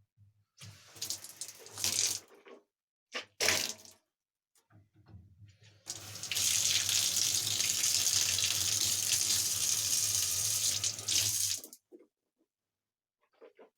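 Tap running into a sink for about six seconds, likely for rinsing during tooth brushing, then shut off abruptly. Two short bursts of water sound come before it.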